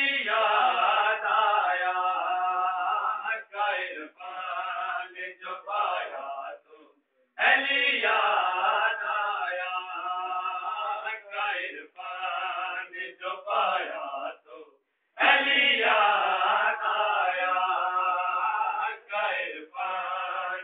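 Men's voices chanting a devotional recitation in long melodic phrases of about seven seconds each, with short breaks about seven and fifteen seconds in.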